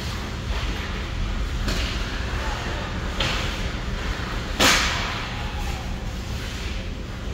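Ice hockey play: skates scraping on the ice twice, then one sharp, loud crack about four and a half seconds in, over a steady low rumble.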